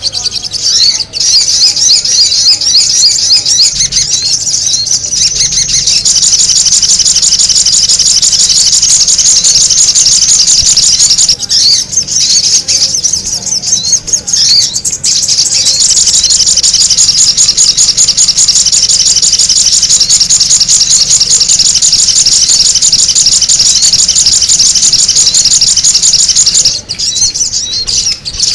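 Sogon bird calls used as a lure: a dense, loud run of rapid, high chirps repeated without pause, with brief breaks about 11 and 14 seconds in and again near the end.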